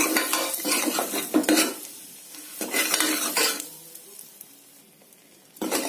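Steel spoon scraping and clinking against an aluminium pressure cooker as ground spices are stirred into hot oil, the oil sizzling as the powders roast. The stirring pauses for about two seconds past the middle, leaving a faint sizzle, then starts again just before the end.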